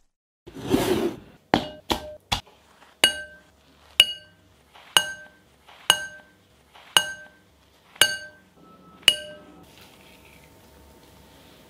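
A spoon tapping against the rim of a glass mixing bowl as spice powders are knocked off it onto raw chicken: a brief rustle, a few quick clicks, then about seven clear clinks, one a second, each ringing briefly.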